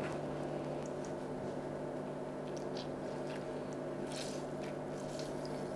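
Lemon half being squeezed by hand, with a few faint soft squishing sounds in the middle, over a steady low electrical hum.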